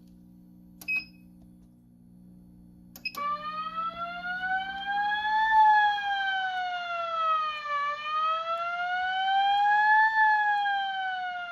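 Fire alarm/mass notification speaker sounding a slow wail: a steady tone that glides up and down in pitch, about two and a half seconds each way. It is the alert tone that comes before a severe weather warning announcement. It starts about three seconds in, after a click and a short beep about a second in and another click.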